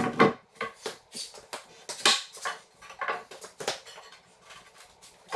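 Large slab of glued-up pine 2x4s being flipped and set down on a concrete floor: a series of irregular wooden knocks, clunks and scrapes, loudest at the start and again about two seconds in.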